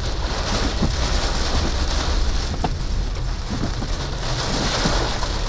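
Heavy rain pelting a vehicle's roof and windshield, heard from inside the car, with scattered drops ticking and a steady low rumble underneath.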